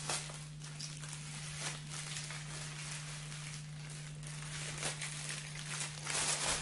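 A steady low hum under a hiss, with scattered faint clicks and a louder rush of noise about six seconds in.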